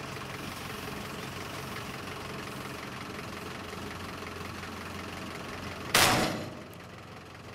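Engine of heavy farm machinery running steadily with a faint regular ticking. About six seconds in, a sudden loud rush of noise dies away within a second.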